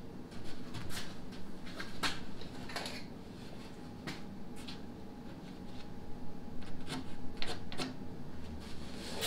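Plywood panels being handled and shifted against each other on a worktable: scattered light wooden knocks, taps and scrapes, over a faint steady hum.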